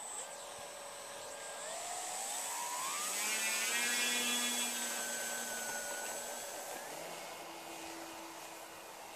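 RC model airplane's motor and propeller throttling up for a takeoff run: a whine that climbs in pitch over the first three seconds, is loudest about four seconds in, then fades and drops lower as the plane runs off across the grass. A thin high whine sits above it.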